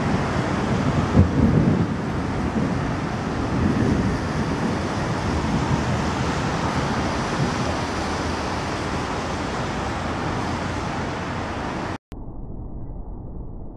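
Thunder rumbling and slowly dying away over a steady background of wind and city noise. The rumble is strongest in the first few seconds. About twelve seconds in the sound cuts off abruptly and gives way to a quieter, muffled background hiss.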